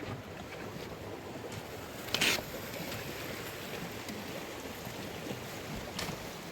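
A steady outdoor rushing noise, with a short sharp sound about two seconds in and a faint click near the end.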